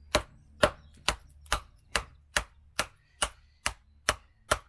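Batoning: a wooden baton knocking steadily on the spine of a Real Steel Bushcraft III knife, about two strikes a second, driving the blade down through a piece of wood to split it.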